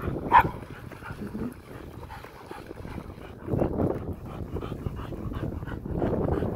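A dog gives one short, sharp bark about a third of a second in. Low rushing noise swells up briefly around three and a half seconds in and again near the end.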